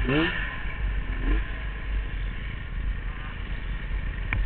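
Arctic Cat M1000 snowmobile's two-stroke twin engine running under load in deep powder snow, its pitch swelling up and down a few times near the start before settling into a steadier drone.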